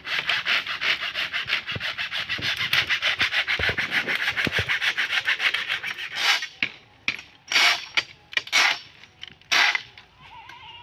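An old wooden fence post being cut through near the ground: rapid, even rasping strokes for about six seconds, then several separate sharp knocks and cracks.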